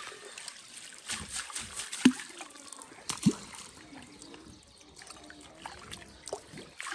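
Water splashing and trickling as small fish are let go back into the pond, with sharp splashes about two and three seconds in.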